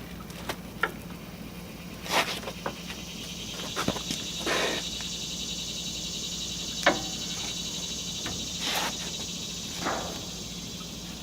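A 6-inch steel bar being cut by machine: a steady low hum with a steady high-pitched hiss-whine that comes in about two and a half seconds in. Scattered sharp knocks and clicks of metal handling sit over it.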